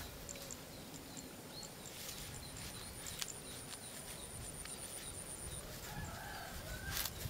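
Rural outdoor ambience: small birds chirping over and over, a thin high trill for a few seconds in the middle, and a chicken clucking near the end.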